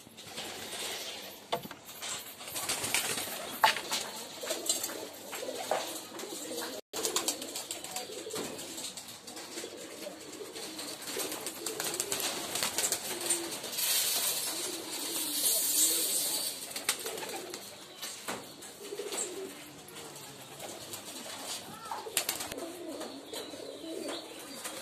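Domestic pigeons cooing again and again, with wings flapping as birds take off from the roof.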